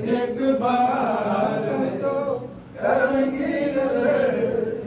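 A man singing an Urdu devotional song into a microphone in long, drawn-out phrases, with a brief pause about halfway through.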